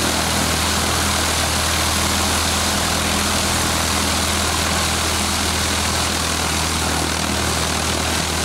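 Piper Archer's four-cylinder Lycoming engine idling with the propeller turning: a steady low drone with an even hiss over it.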